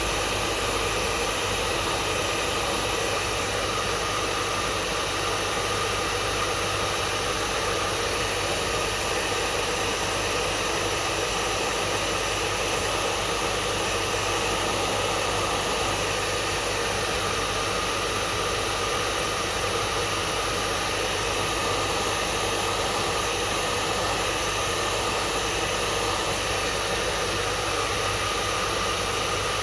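Hair dryer running steadily: an even rush of blown air over a faint motor hum.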